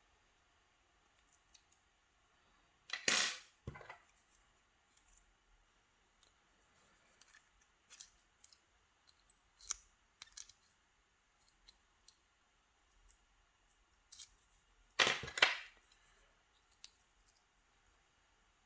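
Small clicks and taps from a picked-open challenge lock and its picking tools being handled while the plug is turned through a full rotation, with two louder brief rattles about 3 seconds in and again near 15 seconds.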